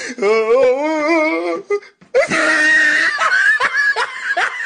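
A wavering, whining voice held for about a second and a half, then after a brief gap a noisy stretch and a run of short giggling laughs.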